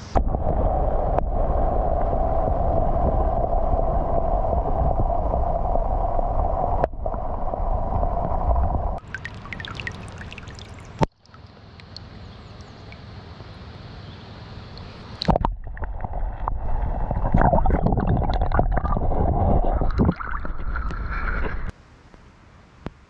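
River water rushing and gurgling close to the microphone, a loud, low, noisy rush that stops and changes abruptly several times.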